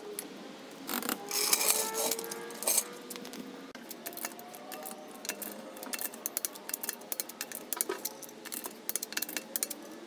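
Metal tools clinking and clicking: steel jack parts clank as the car is lowered off the floor jack and stands, then a wrench ratchets and clicks on the wheel's lug nuts.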